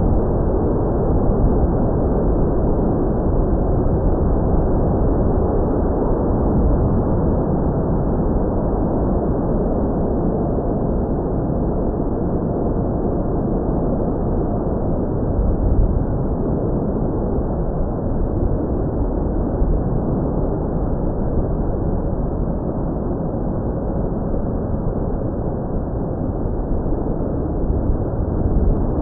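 Steady, heavy wind rumble on the microphone, with the faint, steady whine of the RC plane's brushless motor (T-Motor F60 Pro 1300kv on 4S) and two-blade propeller in flight.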